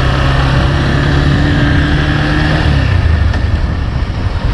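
Motorcycle engine running while riding, heard from the rider's seat over a steady rush of air and road noise. The engine note drops about three seconds in.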